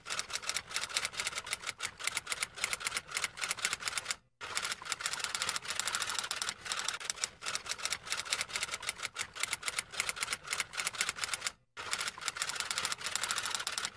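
Typewriter sound effect: a rapid run of clacking keystrokes, broken by two short pauses, about four seconds in and near twelve seconds.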